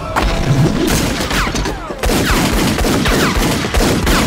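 Film fight sound effects: a loud, rapid, dense run of blows and impacts mixed with short falling swishes.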